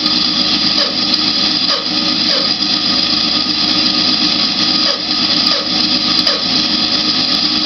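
Grizzly G0513X2B bandsaw running with a steady hum made up of several held tones. This is the strange noise that comes with its motor getting very hot, which the owner takes for a fault in the new saw.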